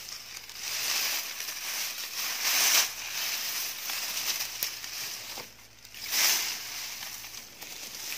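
Dry grass and dead leaves rustling and crunching underfoot as someone walks through dry brush, with louder crunches twice.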